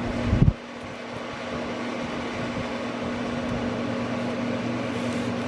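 A steady mechanical hum with one constant low tone, like a fan or room appliance running. There is a brief low thump just under half a second in.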